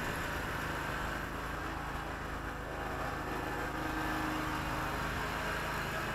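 Riding lawn mower's engine running steadily while it mows, a continuous even hum.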